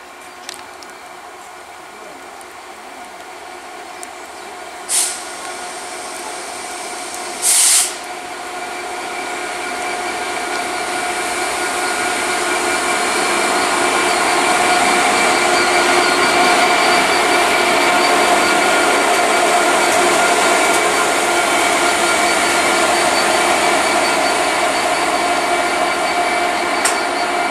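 Class 66 diesel-electric locomotive, with its two-stroke EMD V12, running light engine and approaching: a steady engine drone with held tones that grows steadily louder as it draws near. Two brief loud hissing bursts cut in about five and about seven and a half seconds in.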